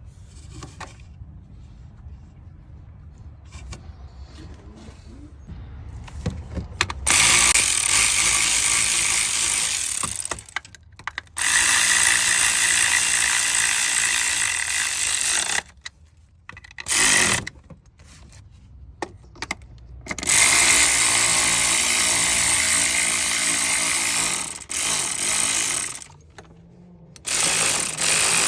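Cordless power tool driving in the coil pack bolts on a Chevy 5.3 V8, its motor whining in about six bursts of one to four seconds each, with quieter handling clicks before the first burst about seven seconds in.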